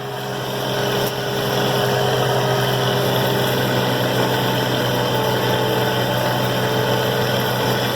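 Combine harvester's straight-piped diesel engine running steadily, heard from inside the cab, growing a little louder over the first couple of seconds; the operator says it is wanting to spit and sputter and not idle correctly.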